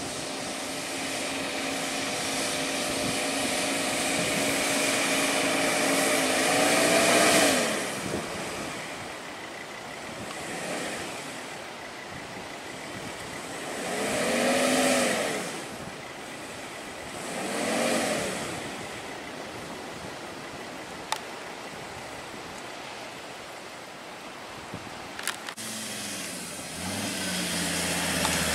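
Ford Ranger ute engine working through soft sand: the revs build steadily, then rise and fall in three surges as the wheels dig in. Two sharp clicks come in the quieter stretch, and a second vehicle's lower engine note comes in near the end.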